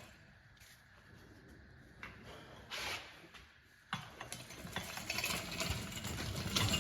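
Metal clicking and rattling, quiet at first with a lone click and a short hiss, then a busier run of clicks from about four seconds in. It is the clutch release bearing and clutch fork being worked and sprung out of a Subaru WRX gearbox.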